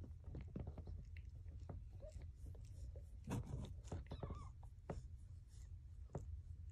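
Tortoiseshell mother cat licking her newborn kittens clean: faint, wet, irregular tongue clicks and smacks, thickest about three and a half seconds in.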